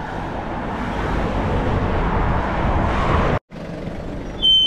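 Road traffic noise, a passing vehicle swelling louder, that cuts off abruptly about three and a half seconds in. Near the end comes a short high-pitched squeal that falls slightly in pitch.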